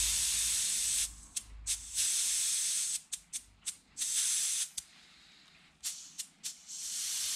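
Air hissing out of an e-MTB rear air shock as its 160 psi is let down with a shock pump attached. It comes in several long hisses broken by short spurts and brief pauses.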